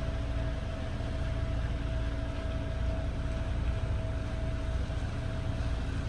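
A sailing catamaran's engine running steadily under way: a continuous low rumble with a constant hum above it.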